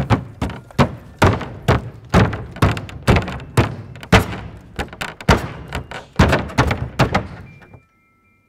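Knife blades fixed to a dancer's pointe shoes striking the lid of a grand piano: an uneven run of hard thunks, two or three a second, that fades out shortly before the end.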